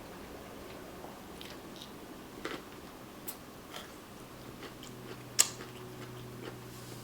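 Close-up eating sounds: chewing and biting, with scattered small clicks and cracks and one sharp snap about five and a half seconds in.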